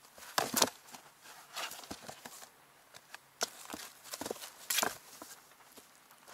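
A kitten scrambling and pouncing in a cardboard box, its claws scratching and its paws knocking on the cardboard in irregular scuffs and thumps. The loudest come about half a second in and just before five seconds.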